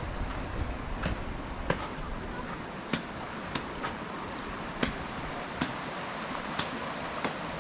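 Sharp, short chopping knocks, about ten at an uneven pace of roughly one a second, over steady background noise.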